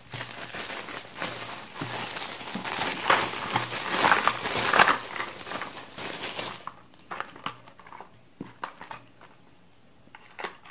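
Thin plastic packaging bag crinkling and rustling as it is handled and pulled open. After about six and a half seconds it goes quieter, with scattered light clicks and taps as small clear plastic lure cases are picked up and handled.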